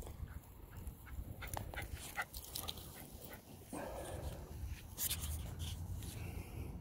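Small dog close by, making a quick run of short clicking, puffing sounds through the middle, with a brief higher note near the end.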